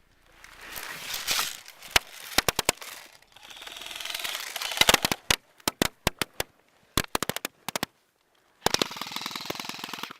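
Airsoft guns firing during a game: scattered sharp single shots and short quick strings, then a fast rattling full-auto burst of about a second and a half near the end.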